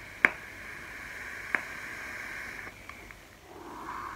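Long draw through an Antman 22 rebuildable dripping atomizer on a firing mod: a steady hiss of air and sizzling coil, with two sharp pops about a quarter second and a second and a half in. Near the end comes a breathy exhale of vapour.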